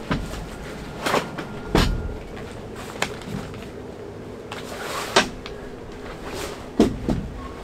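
Camping gear being packed by hand: nylon bags and a folded pad rustling and scraping, with several soft knocks as items are set down on a wooden floor, the loudest about seven seconds in.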